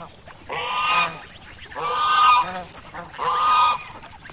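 Domestic geese honking: three drawn-out honks, evenly spaced about a second and a half apart.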